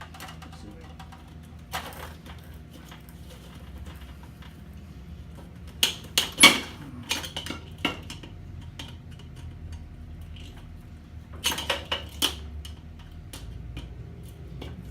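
Metal tools clinking and scraping against a rusted nut and screw: a socket and screwdriver working at the nut in three clusters of sharp clicks, the loudest about six and a half seconds in. The rusted nut does not come free.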